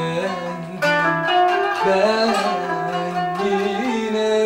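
Kanun, a Turkish plucked zither, playing a slow melody with finger picks. Near the end a voice comes in and holds long notes that waver slightly.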